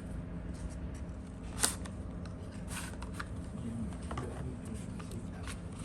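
Hands handling packaging and a phone accessory: scattered light clicks and rustles, the sharpest click about one and a half seconds in, over a steady low hum.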